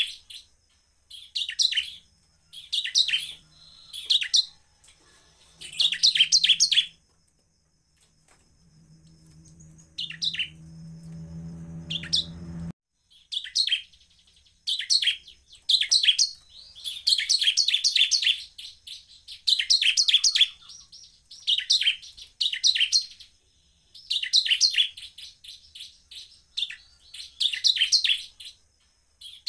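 Bar-winged prinia (ciblek) singing: short, rapid bursts of high chattering notes, each under a second long, repeating every second or two. A low hum builds from about eight seconds in and cuts off abruptly near thirteen seconds.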